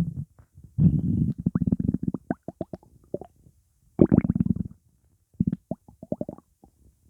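Human stomach rumbling and gurgling from gas in an upset stomach. There are two loud low growls, about one second in and about four seconds in, each followed by a run of quick, higher-pitched gurgles and squeaks.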